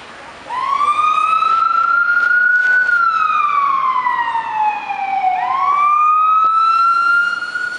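Fire chief's SUV siren sounding a slow electronic wail, starting about half a second in: the pitch climbs, slides slowly down, then climbs again near the end.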